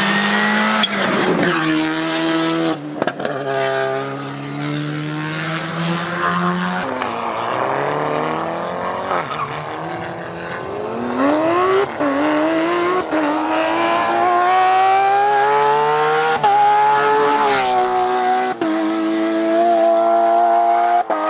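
Rally car engine at full attack, its pitch climbing through the gears with sharp breaks at each shift. Around the middle the note falls away as a car passes, then climbs again through several more gears.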